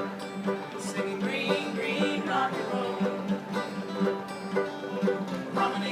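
Acoustic old-time string music played live: plucked strings picking a tune over a steady rhythm.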